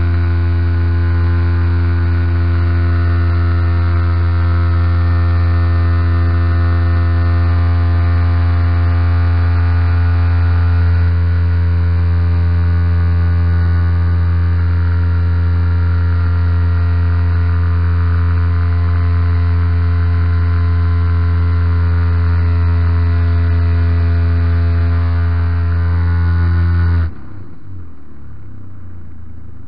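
Model Piper J-3 Cub's MVVS 116 twin-cylinder petrol engine and propeller running steadily at high power while towing, picked up by an onboard camera. A few seconds before the end the engine sound cuts back abruptly to a much quieter low idle.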